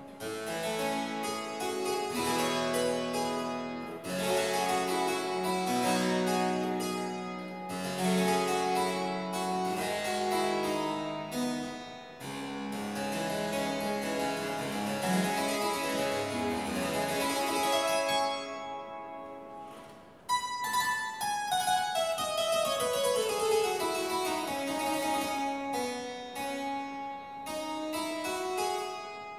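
Solo harpsichord playing, with dense plucked chords and runs. About twenty seconds in, the sound dies away briefly, then a long falling run of notes follows and turns to climb again near the end.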